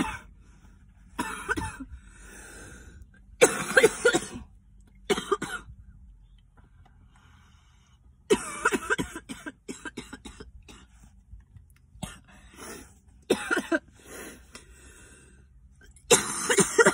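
A woman coughing in repeated fits, a reaction to harsh cannabis smoke drawn from a glass hammer bubbler pipe. The coughs come in several bouts, with the longest run starting about eight seconds in and another loud fit near the end.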